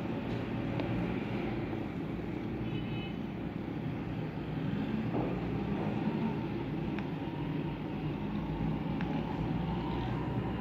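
Steady low rumble of background road traffic, with a few faint clicks.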